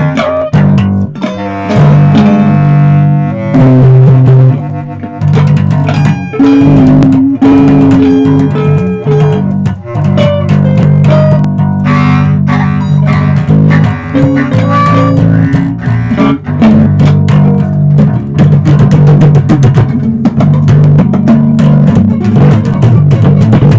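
Instrumental music with guitar over a strong electric bass line, plucked notes changing every second or so.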